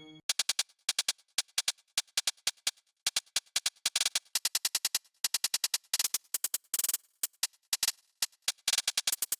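A synthesizer percussion preset built on generated noise, from Arturia's Trap Drop pack for Analog Lab, playing a fast trap-style pattern of short, hissy hits with quick rolls. One longer noise hit comes near the seven-second mark.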